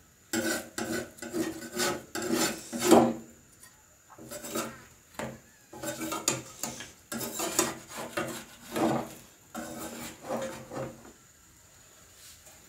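Metal spatula scraping against a black pan in short, irregular strokes, loosening a thin flour pitha from the pan. The scraping stops about eleven seconds in.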